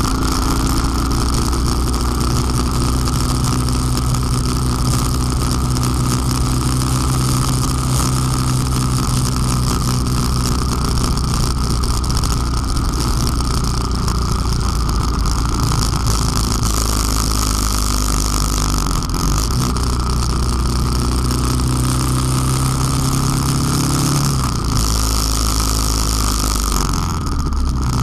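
Honda Transalp motorcycle engine running at a steady road speed with wind rushing past, over a constant clicking from the rattling front-wheel camera mount. The engine note shifts lower and then back up near the end.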